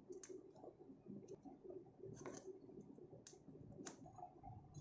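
Faint clicks of a hand screwdriver turning a small cross-head screw into a metal block, about one a second, several in all.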